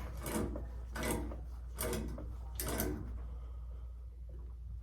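Threaded pipe fitting being turned tight with Knipex tongue-and-groove pliers: four short scraping strokes about a second apart, then quieter, over a steady low hum.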